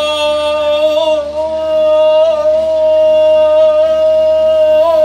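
A single man's voice singing a kiyari-uta, the traditional Japanese work chant, drawing out long held notes with slight wavers in pitch and a short break for breath about a second in.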